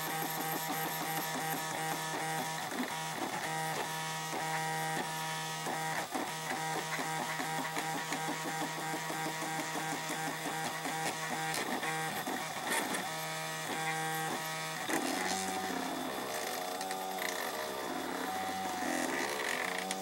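Desktop 3D printer running a print, its stepper motors making a steady multi-toned whine with short breaks. About fifteen seconds in, this turns into repeated rising and falling pitch sweeps as the moves speed up and slow down.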